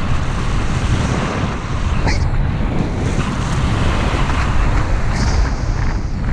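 Wind rushing over the microphone of a skier moving downhill, with the steady hiss of skis sliding over packed, groomed snow and a couple of sharper edge scrapes about two and five seconds in.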